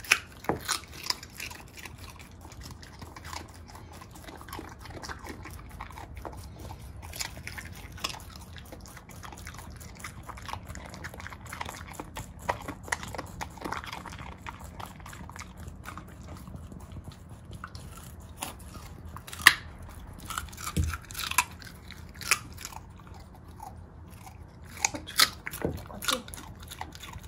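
Corgi chewing raw carrot: irregular crisp crunches and bites, with a few louder crunches in the second half. A rabbit nibbles carrot stalks alongside.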